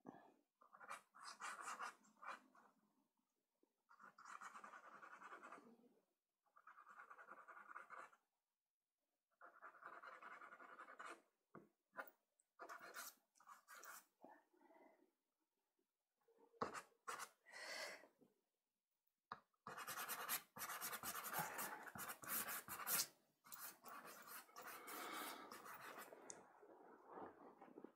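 Soft pastel stick scratching across sanded Pastelmat paper in back-and-forth strokes, in short separate runs of a second or two, then a longer, busier stretch in the last third.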